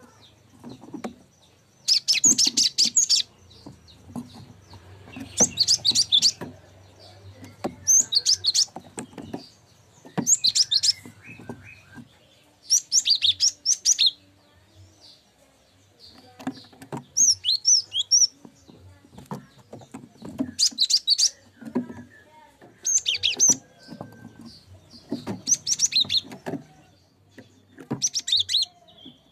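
Cinereous tit (gelatik batu) calling: phrases of rapid, high-pitched chirps about a second long, repeated every two to three seconds.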